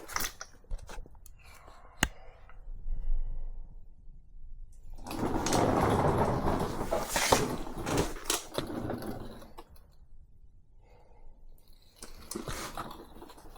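Workshop handling noises: a few sharp clicks and knocks, then several seconds of rustling and scraping about five seconds in, and more light clatter near the end.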